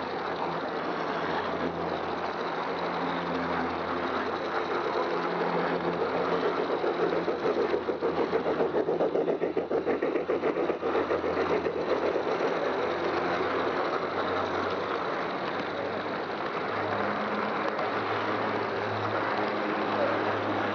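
Battery-powered G-scale model train running on its track, heard from a car it is pulling: a steady low motor hum with wheels rolling on the rails. Around the middle it grows louder with a fast, even rhythmic clatter for a few seconds.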